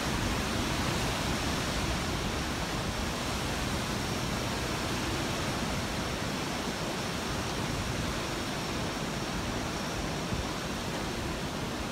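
Steady rushing noise of hurricane wind.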